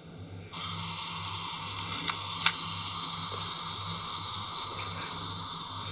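Pentax MV1's mechanical self-timer running: a steady buzzing whir that starts suddenly about half a second in, with a single click about two and a half seconds in. The owner reckons the timer needs a bit of exercise.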